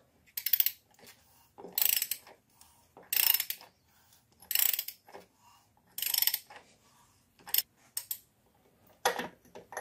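Ratchet wrench on a socket clicking in five short runs about a second and a half apart, as a threaded spigot fitting is wound into an aluminium oil filter housing, then a few single clicks near the end.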